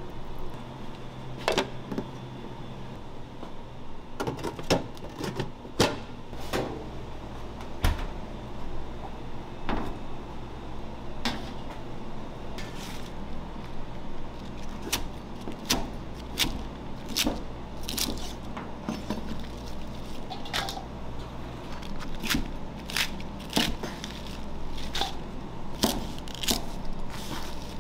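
Chef's knife cutting leafy salad greens, including curly chicory, on a plastic cutting board: a run of sharp knocks, sparse at first and coming more often in the second half, over a steady low hum.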